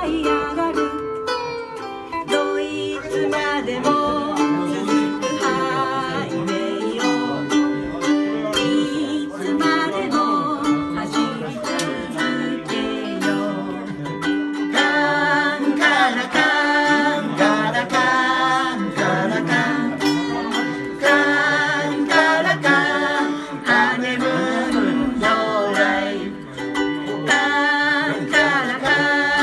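Live ukulele-and-guitar duet: ukulele strummed with electric lead guitar, and a woman and a man singing, the voices strongest in the second half.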